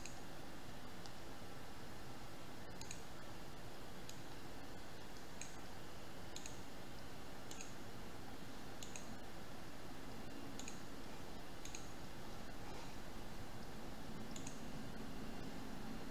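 Computer mouse buttons clicking about a dozen times at irregular intervals, roughly a second apart, over a faint steady background hiss.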